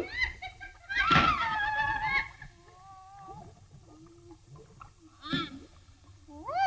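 Wordless cartoon vocal sounds with gliding pitch: a long, loud, wavering cry about a second in, fainter sounds in the middle, then short rising-and-falling calls near the end.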